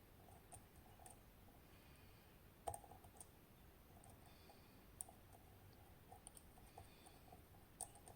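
Faint scattered clicks and ticks from a lock pick working the pins of a TESA T80 cylinder under tension, with a few sharper clicks about three seconds in, about five seconds in and near the end.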